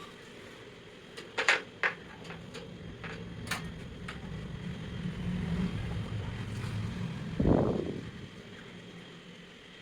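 Water running and splashing while plastic fan parts are rinsed, with a few sharp clicks and knocks of parts being handled in the first few seconds and a louder splash just before the end.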